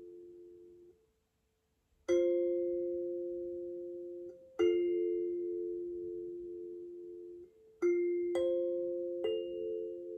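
Struck metal chime tones ringing out and slowly fading. A ringing tail dies away in the first second, and after a short silence about five strikes follow, each a bright attack with a long, decaying ring. One of the tones wavers with a slow beat.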